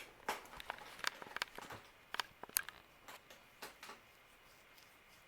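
Light, irregular metal clicks and ticks from a Palm Air ceiling fan's long pull chains swinging against the fixture after a pull, thinning out and stopping about four seconds in.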